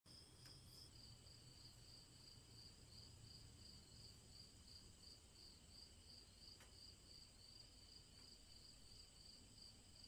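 Faint crickets chirping: a high trill pulsing evenly, two or three pulses a second.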